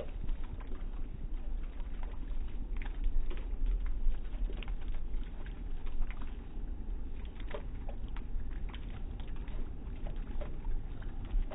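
Thin fountain jets splashing into a shallow stone basin: an irregular patter of drops and small splashes over a low, steady rumble.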